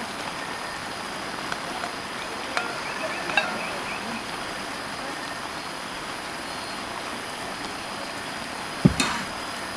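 Beef and bitter melon sizzling and simmering in a cast iron pan over a camp burner: a steady hiss with a few light clicks a few seconds in. A single sharp knock near the end is the loudest sound.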